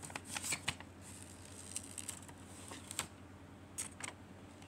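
Paper being handled: notebook pages and loose drawing sheets rustling and sliding, with a few short crackles and taps spread through.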